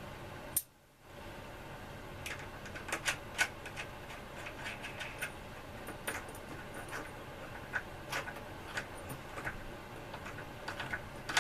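Small loose metal washers and hardware clinking and rattling as they are picked through by hand: scattered light clicks, with a brief gap just under a second in.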